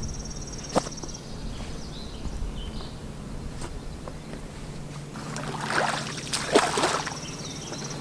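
A long wooden branch jabbed into a shallow muddy pond to probe the bottom, with a few knocks early on, then a sloshing splash of water around five to seven seconds in as it is pushed through the water.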